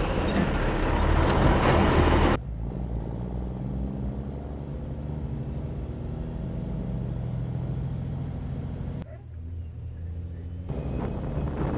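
Heavy diesel truck on the move. For the first couple of seconds the tyres and engine make a loud rumbling noise. After a sudden drop in level, the engine drones steadily at road speed, goes quieter for about a second and a half near the end, then comes back up.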